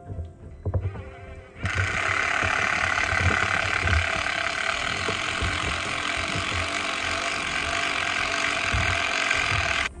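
Cordless drill running steadily for about eight seconds, driving a screw through a board into a tree trunk; it starts abruptly about two seconds in and cuts off near the end.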